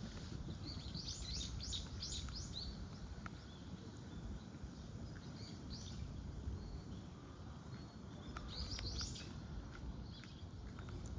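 Bird calls: short, high chirps in quick runs, about a second in, again around six seconds and near nine seconds, over a steady low rumble.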